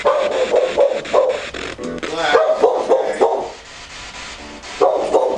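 A dog barking in short repeated bursts, with a brief whine in the middle; the barking stops about three and a half seconds in and starts again near the end. Underneath is the steady, evenly chopped static of a spirit box sweeping through radio stations.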